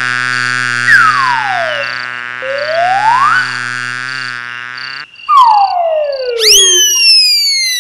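Cartoon sound effects of electronic whistle-like tones sliding up and down over a steady buzzy drone. About five seconds in the drone stops, and a long falling whistle and sharp rising tones follow, each falling away slowly, a cartoon falling effect.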